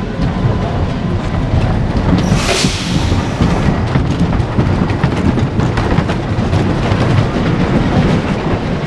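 An amusement-ride train rumbling steadily along its rails, with a rattle of wheel clicks and a brief rush of hiss a little over two seconds in.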